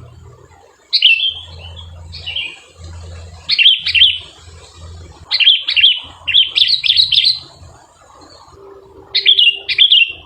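A decoy bird calling in about six loud bursts of sharp, quickly repeated chirps, each note sweeping down, with short pauses between bursts.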